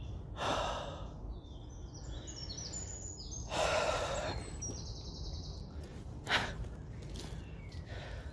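A man's heavy sighing breaths while walking, two loud ones, about half a second in and about three and a half seconds in. A songbird sings in stepped high notes behind them, and a single sharp knock comes about six seconds in.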